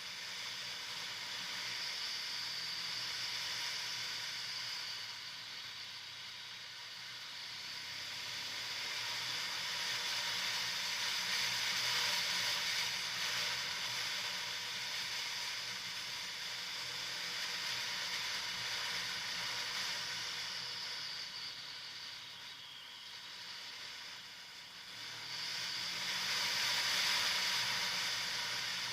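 Steady hiss of wind and tyre noise from a Kawasaki Versys motorcycle riding a dirt track, with the engine faint underneath. The hiss swells and eases slowly as the ride goes on.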